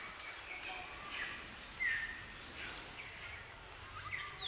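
Birds chirping now and then: short, separate falling and curving calls over a steady background hiss.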